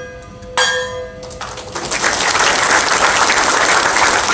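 A bell is struck once about half a second in and rings on. From about a second and a half in, the audience breaks into applause that grows into loud, steady clapping.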